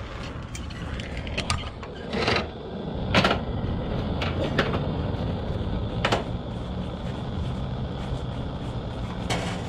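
A steady low rumble with a few short, sharp clicks and knocks scattered through it, the loudest about three seconds in.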